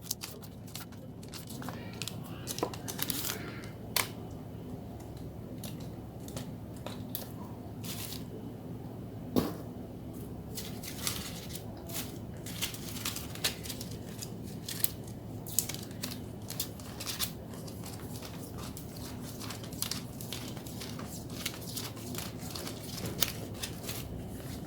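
Photocards and their plastic packaging being handled: crinkling and rustling with many small clicks and taps, one sharper tap about 4 s in and another about 9 s in, over a steady low hum.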